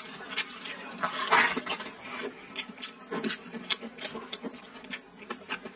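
Close-miked chewing: wet, irregular clicking and smacking mouth sounds of eating stewed chicken and potatoes, with a louder stretch about a second and a half in.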